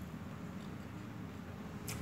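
Faint mouth sounds of a person chewing noodles with lips closed, over a steady low rumble, with one sharp click near the end.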